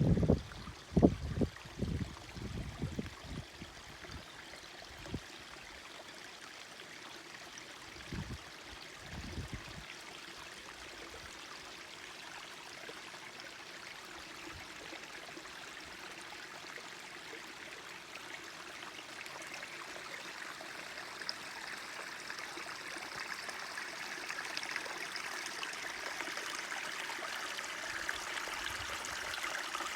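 Forest stream trickling and babbling steadily, growing louder in the last third. Low thumps come in the first few seconds and again about eight seconds in.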